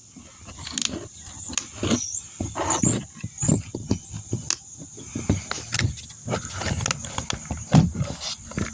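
Irregular clicks, taps and knocks of a car door lock actuator and its plastic clips and linkage being handled and worked loose by hand.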